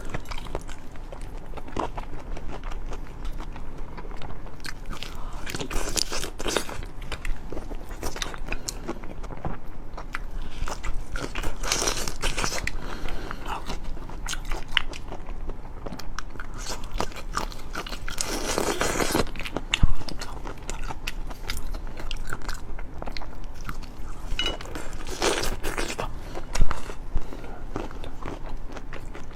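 A person eating crunchy food close to the microphone: repeated bites and chewing with irregular crunching and crackling, with two louder sharp snaps, one about two-thirds of the way in and one near the end.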